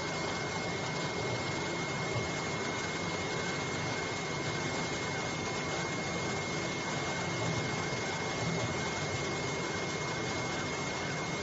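AOKE CNC flatbed cutting machine running while its cutting head cuts printed paper labels: a steady mechanical whir with a constant high whine.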